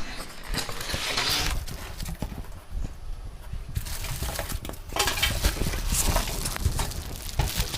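Cardboard box and packing material being handled as a subwoofer is unpacked: irregular rustling and scraping with scattered light knocks, louder from about five seconds in.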